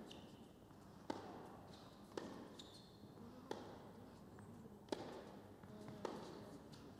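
Tennis rally: racket strikes on the ball and ball bounces on the court, a string of sharp hits a little over a second apart.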